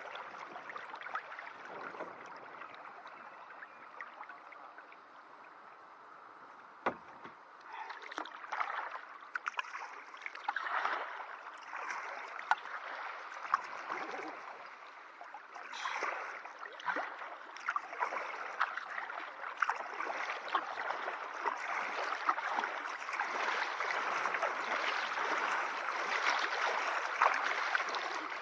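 Water splashing and gurgling along the hull of an inflatable kayak as it moves through the water, with many small clicks. It is quieter for a few seconds, then a single sharp knock, then it swells in irregular surges.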